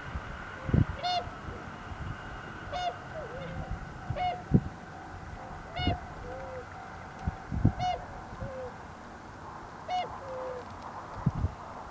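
Bewick's swans (tundra swans) calling, short, soft bugling hoots repeated every second or two by several birds, some calls higher and some lower. A few low thumps also sound, the loudest about four and a half seconds in.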